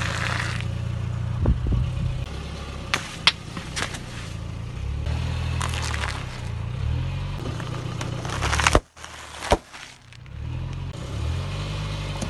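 A car engine runs low and slow as a tyre rolls over small hard objects and plastic cups, with several sharp cracks and pops as they break under it. The loudest cracks come about three-quarters of the way in.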